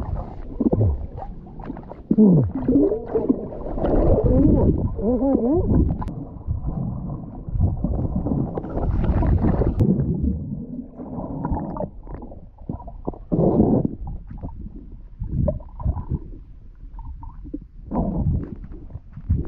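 Muffled sound of lake water picked up by a camera held underwater: gurgling, sloshing and low rumbling, with a few wavering tones in the first few seconds.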